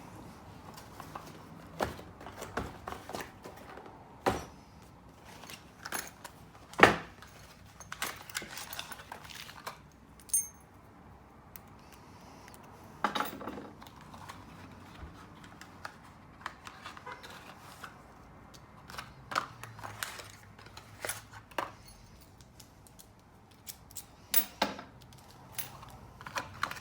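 Metal key blanks clinking and jangling as they are handled on hanging hooks, with irregular sharp clicks and clanks; the loudest clank comes about seven seconds in.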